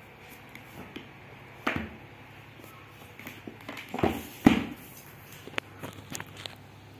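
Cardboard tablet box being handled and flipped over, giving a few scraping knocks against the surface, the loudest thump about four and a half seconds in, over a faint steady hum.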